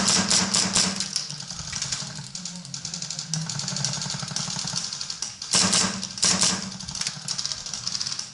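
Airsoft electric guns firing on full auto, a fast mechanical rattle over a low motor hum, with louder strings of fire right at the start and again about five and a half seconds in.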